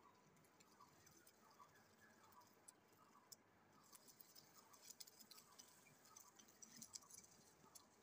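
Near silence, with a faint short chirp repeating steadily about every two-thirds of a second and faint scattered ticks in the second half.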